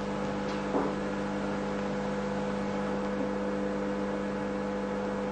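Steady electrical mains hum with hiss: a constant low buzz of several held tones, unchanging throughout.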